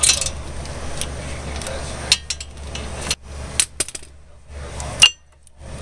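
Scattered metallic clinks and knocks of a ratchet and socket working on a front brake caliper bolt, about one a second, the sharpest about five seconds in. A low steady hum sits under the first half and fades out past the middle.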